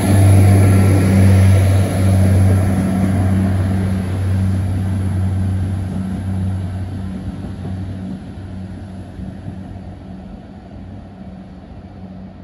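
Irish Rail InterCity diesel railcar moving away along the platform, its low engine drone and rail noise fading steadily as it recedes.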